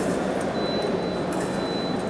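Steady background noise of a large hall, with a thin high whine that holds for about a second and a half and a few faint clicks.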